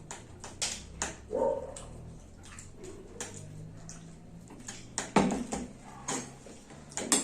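Spoons clinking and scraping against bowls of rice pudding while people eat, a scattering of short sharp clicks with the loudest near the end. A brief pitched vocal sound comes about a second and a half in, over a faint steady low hum.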